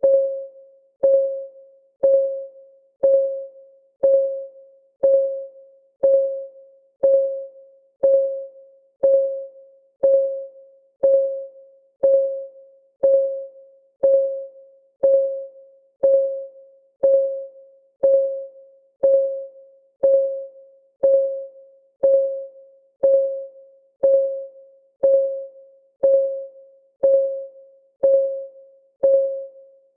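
Countdown timer's clock-ticking sound: one short tick a second, each with a ringing tone that fades quickly, perfectly even.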